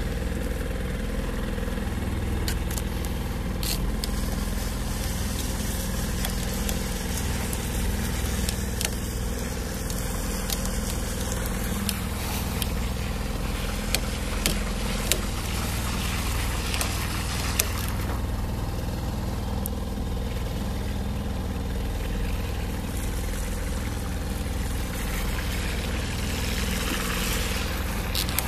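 Boat engine running steadily, a constant low drone, with a few sharp clicks from the planer reel as it is cranked by hand.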